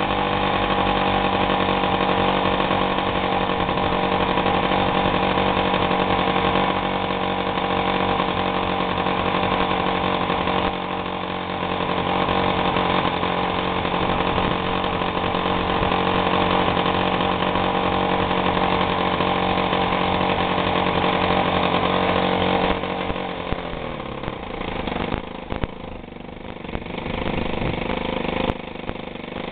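Piaggio Ciao PX moped's small two-stroke single-cylinder engine, fitted with a reworked piston, running steadily flat out at about 7,000 rpm, its maximum. About 23 seconds in the revs fall away, and it then runs slower and unevenly.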